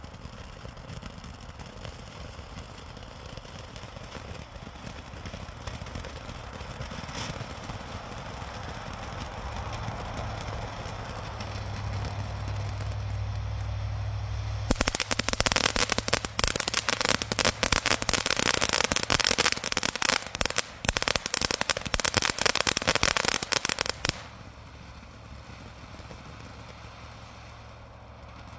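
Ground fountain firework spraying sparks: a steady hissing rush that slowly builds, then about halfway through a loud, dense, rapid crackling breaks in for about nine seconds before dropping back to a quieter hiss.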